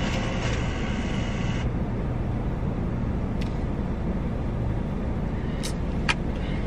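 Steady hum of a car idling, heard from inside the cabin, with a few short clicks about three and a half seconds in and twice near the end.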